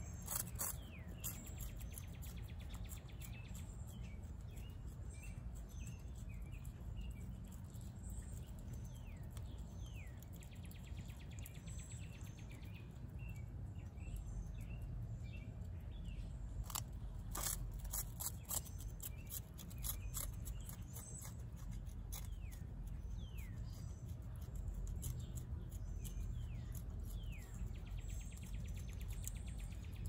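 Opossum chewing and crunching food in sharp, irregular clicks, busiest at the start and again about 17 seconds in. Birds chirp in the background with short falling calls.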